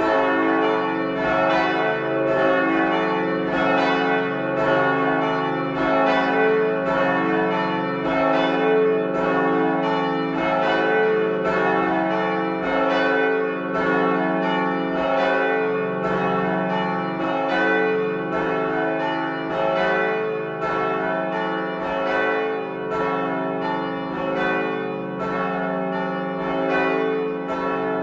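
Carillon bells ringing continuously. Bells are struck in quick succession, about two strikes a second, and their tones ring on and overlap.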